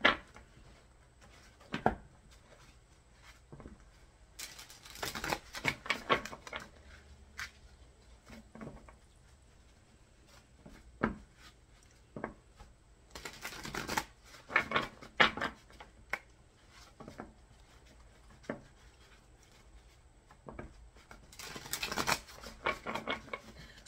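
Tarot cards being shuffled by hand: three bouts of shuffling, a few seconds in, around the middle and near the end, with scattered single card clicks and taps between them.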